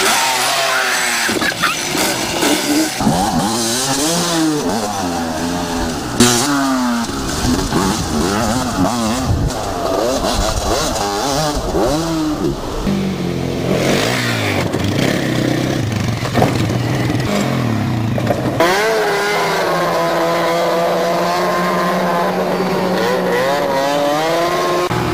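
Off-road vehicle engine revving hard, its pitch rising and falling over and over, with one sharp knock about six seconds in. Near the end it settles into a steady, even pitch.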